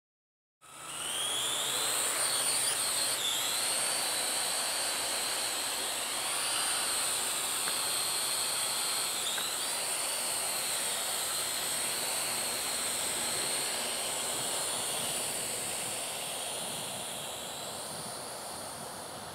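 Parrot AR.Drone 2.0 quadcopter's four electric motors and propellers whining steadily as it hovers, the pitch wavering up and down as the motors adjust speed. The sound starts abruptly about half a second in and grows slightly fainter near the end.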